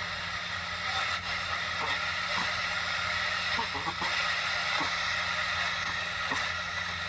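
Grundig radio cassette player giving out a steady FM static hiss with a low mains hum under it, and no programme sound getting through.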